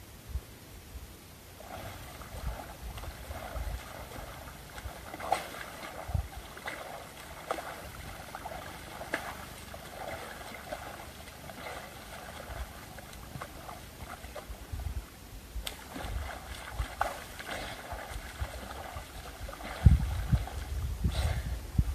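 Water sloshing and gurgling, with a thick run of small crackles and ticks, then low thumps near the end.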